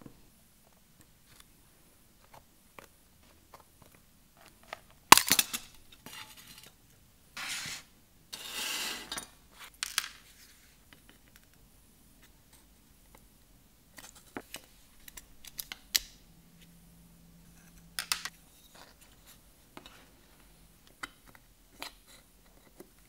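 Steel hand tools working on a pressed-tin toy boat hull as its bent tabs are pried and levered open: scattered light metallic clicks and ticks, one sharp loud snap about five seconds in, and two stretches of scraping a couple of seconds later.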